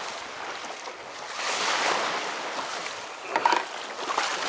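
Sea water lapping and splashing around a fishing kayak, swelling about a second and a half in. A few sharp clicks and knocks follow about three and a half seconds in.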